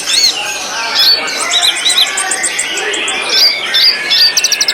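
White-rumped shama (murai batu) singing a fast, varied song of arched whistles and warbles, with a quick rattling trill near the end.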